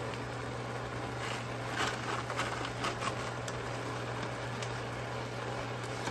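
Wooden chopsticks clicking and scraping against a frying pan while stirring dried baby anchovies into kelp, a few light clicks close together from about one to three and a half seconds in. A steady low hum runs underneath.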